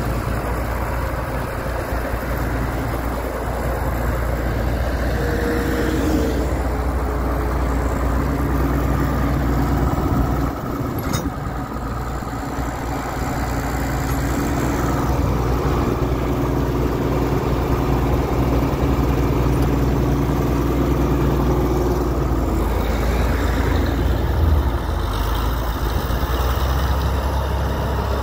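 John Deere 4230 tractor's six-cylinder diesel engine running steadily as the tractor is driven slowly.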